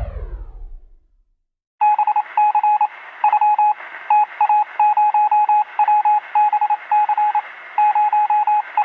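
Touch-tone telephone dialing over a phone line: quick groups of short beeps over line hiss, starting about two seconds in. Just before them, the tail of a falling sweep fades away within the first second.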